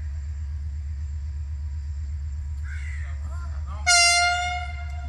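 A diesel locomotive's air horn sounds one blast of about a second near the end, a single steady tone and the loudest thing heard, over a steady low rumble. A short harsh cawing call comes just before it.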